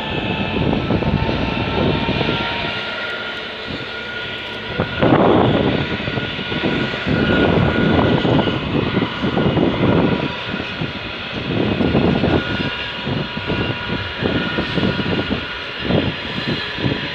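Class 66 diesel locomotive, an EMD two-stroke V12, hauling a container freight train past, its engine droning steadily while the wagons' wheels rumble over the rails in repeated surges.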